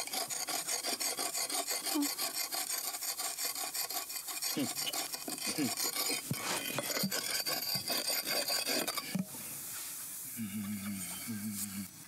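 Fast, rhythmic rasping strokes of something being scraped or filed by hand, stopping abruptly about nine seconds in. Near the end a bird gives a few short honking calls.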